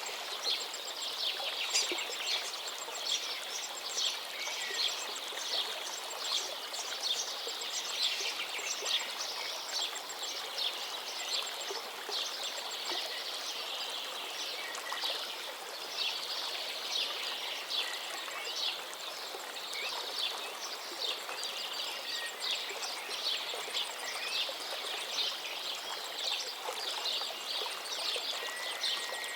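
A dense chorus of songbirds singing many quick, overlapping notes over the steady rush of a flowing river.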